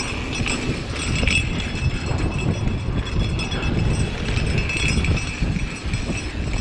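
Mountain bike riding fast down a dry, loose dirt trail: a steady, uneven low rumble of tyres on dust and wind on the GoPro, with light clinks and rattles from the bike.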